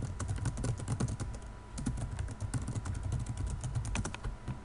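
Typing on a computer keyboard: a fast run of key clicks with a brief pause a little under two seconds in.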